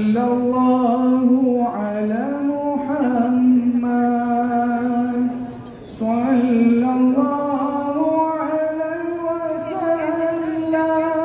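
A song with a solo voice singing long, drawn-out notes that slide from one pitch to the next. The phrases break briefly about two seconds in and again about six seconds in.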